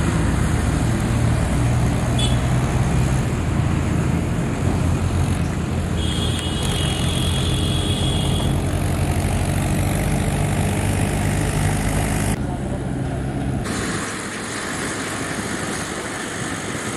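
A steady low engine hum, easing off near the end, with a brief higher tone partway through.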